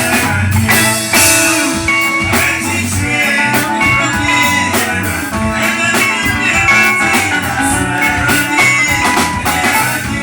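Live band music with electric guitar over a steady drum beat.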